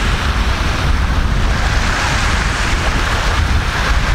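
Wind buffeting the microphone in a heavy, steady rumble, over the wash of small sea waves breaking on the shore.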